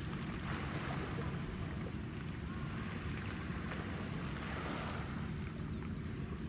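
Steady low rumble of wind on the microphone over the wash of harbour water, with no ship's whistle sounding.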